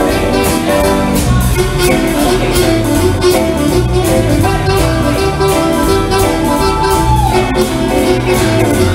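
Live rock band playing a song: drum kit keeping a steady beat under bass and electric guitars, with a held melody note that slides down about seven seconds in.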